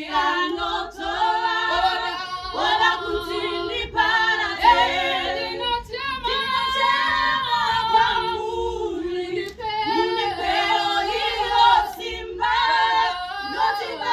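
A group of four women singing a gospel song in Shona a cappella, several voices together without instruments.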